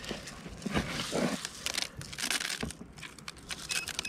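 Dry rice rustling and crunching as hands dig through a cardboard box of it to pull out a drone. Near the end a drone starts giving short high beeps, a warning of a battery fault.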